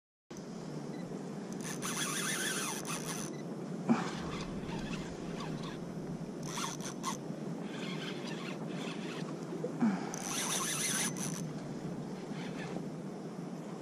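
Fishing reel buzzing in three short bursts, over a steady rushing background of water and wind.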